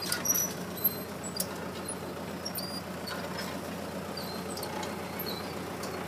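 Tractor engine running steadily while pulling a mechanical transplanter, with short high squeaks over it and a few sharp clicks in the first second and a half.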